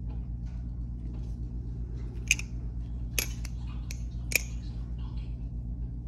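Balisong (butterfly knife) being handled and closed, its metal handles and pivots giving a few sharp clicks, three of them louder.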